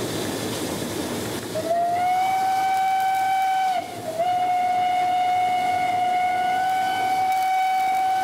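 SNCF 141 R steam locomotive's whistle blown twice from the cab: a steady blast of about two seconds, then after a short break a longer one of about four and a half seconds. The locomotive's running noise is heard before and under it.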